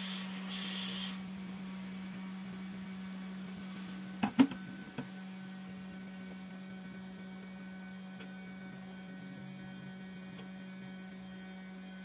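Steady electrical hum from workbench equipment, with a brief cluster of sharp knocks about four seconds in.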